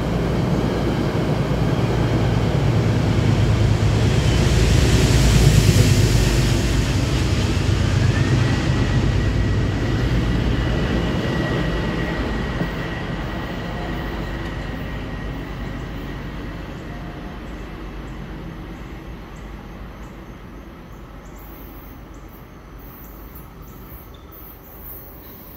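Metro-North M7A electric multiple-unit train pulling out and running past on the rails, its rumble and hiss loudest about a quarter of the way in, then fading steadily as it moves off into the distance. A high whine glides up about a third of the way in and then holds steady as the train recedes.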